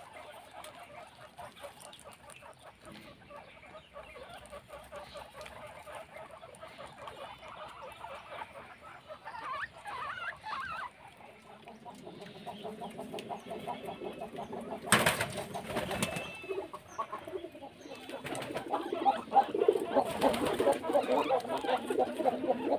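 A group of guinea pigs squeaking and chattering in quick, continuous trills while they feed together, growing louder in the second half. There is a brief loud burst of noise about fifteen seconds in.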